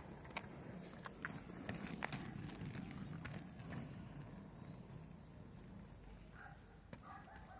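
Inline skate wheels rolling on asphalt: a low, steady rumble with scattered sharp clicks and clacks as the skates strike the road, the rumble strongest in the middle.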